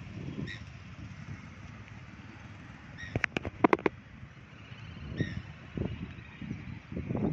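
Open-air lakeside ambience: low wind rumble on the microphone, with a couple of short bird calls and a quick run of sharp cracks about three seconds in.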